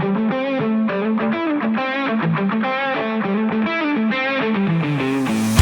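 Background music: a fast run of plucked electric guitar notes with distortion and effects, joined by heavier full-band instruments at the very end.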